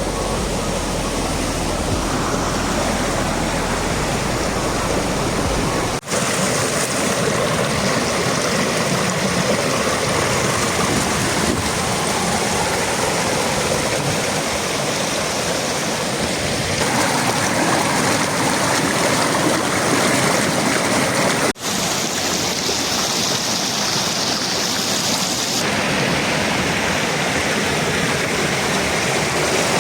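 Waterfall water rushing in a loud, steady roar of noise, with abrupt changes about 6 and 21 seconds in as the recording cuts between spots along the falls.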